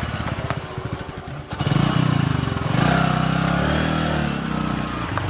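Motorcycle engine running with rapid, even firing, then revving up about a second and a half in as it pulls away, its pitch rising and falling as it rides off.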